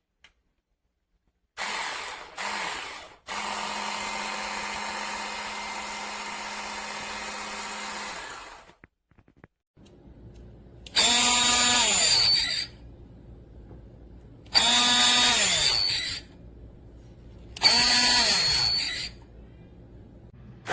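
Electric immersion blender motor: two short pulses, then running steadily at one speed for about five seconds. Over a low hum come three louder bursts, each a second and a half to two seconds long, and the pitch of each falls away as the motor spins down after release.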